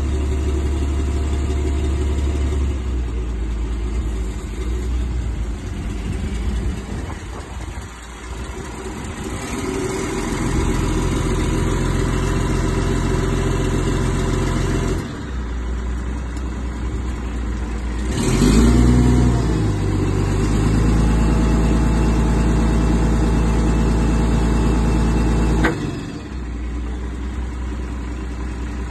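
The motor and hydraulic pump of a Unic 343 crane running steadily, the note dropping and rising several times as the controls are worked and the boom moves. A louder surge with gliding tones comes about two-thirds through, and the note falls back near the end.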